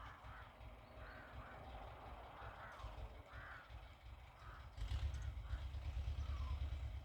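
Crows cawing repeatedly in a series of short calls, over a low rumble that grows louder about five seconds in.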